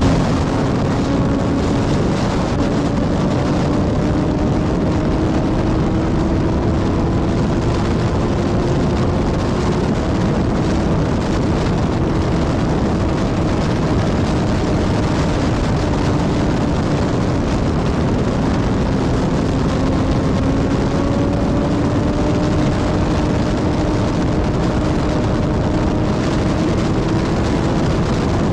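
Strong wind blowing steadily, a constant loud rush with a faint low howling tone that wavers slowly in pitch.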